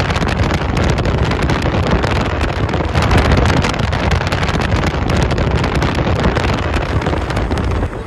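Wind buffeting the microphone: a loud, steady rumble and rush with rapid fluttering.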